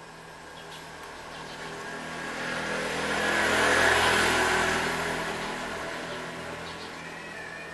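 A small motor scooter drives past close by. Its engine sound builds for about four seconds, peaks as it passes, then slowly fades away.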